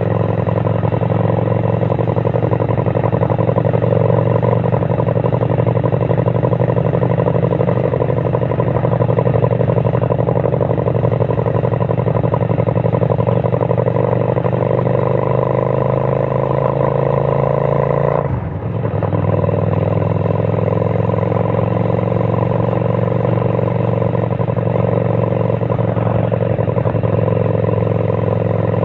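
Kasinski Mirage 250 motorcycle's V-twin engine running loud and steady, its note rising slightly and then dropping out briefly about two-thirds of the way through before carrying on.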